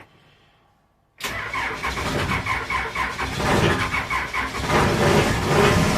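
4BT Cummins four-cylinder diesel in a backhoe running rough with diesel clatter just after a cold start without glow plugs or grid heater. The engine sound cuts in abruptly about a second in, after near silence, and gets a little louder near the end.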